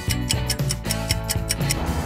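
Clock ticking rapidly, about seven ticks a second, over background guitar music.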